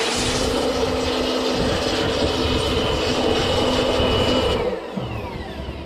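Electric blower running steadily with a hum and whine while blowing dust off a graphics card, cut off about four and a half seconds in, after which it winds down with a falling whine.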